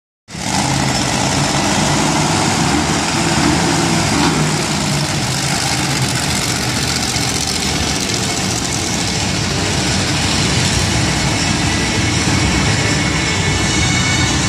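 Monster truck engine running steadily at a low idle, a loud continuous rumble.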